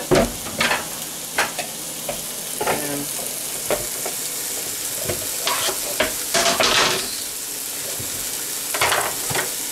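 Chicken frying in a pan with a steady sizzle, overlaid by intermittent knocks and clatters as cut red potato pieces are scraped off a plastic cutting board into a plastic bowl, with a longer scraping clatter about two-thirds of the way through.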